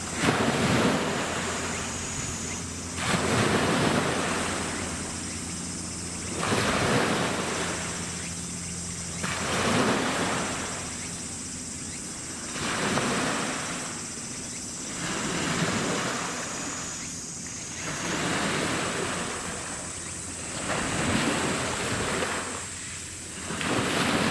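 Waves washing in against the shore, one surge about every three seconds, over a steady low hum.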